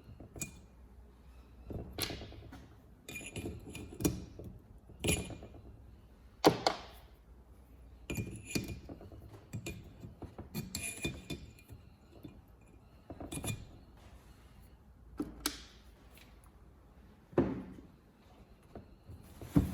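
Small metal valve parts and hand tools being handled on a workbench: an irregular string of sharp clicks, clinks and knocks, some with a short metallic ring.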